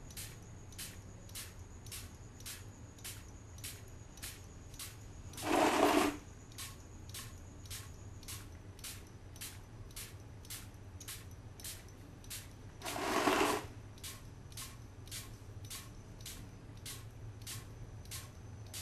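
Spray-on chrome spray gun rig at work: a steady mechanical clicking, just under two a second, over a faint high whine, broken twice by a short loud hiss, about five and a half and thirteen seconds in.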